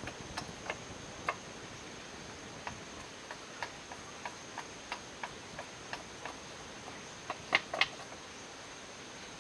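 A chisel driven into the top of a wooden post by light hammer taps, about three a second, with three harder blows near the end.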